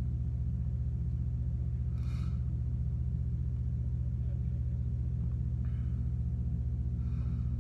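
Steady low electrical hum made of several even tones, with a soft breath about two seconds in and another near the end.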